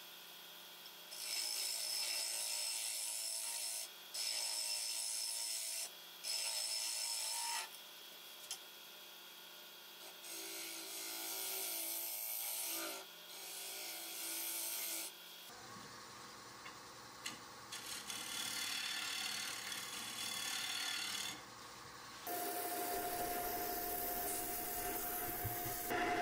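Turning gouge cutting into a spinning mahogany bowl on a wood lathe, shaping the foot in a series of short passes of a few seconds each, with brief pauses between them.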